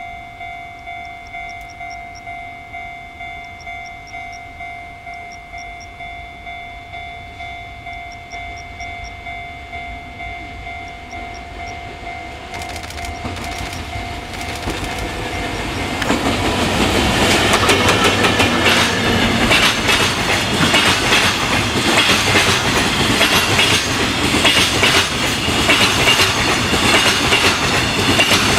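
Level-crossing warning bell ringing in a steady pulse, about two strokes a second, as an EF64 electric locomotive's freight train draws near. From about halfway on, the loco and its long string of flatcars and Chiki rail-carrying wagons pass close by, wheels clattering loudly over the rail joints and covering the bell.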